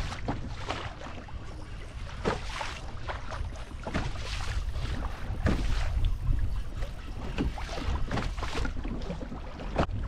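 Wind buffeting the microphone over choppy water, with waves slapping and splashing irregularly against a plastic fishing kayak's hull.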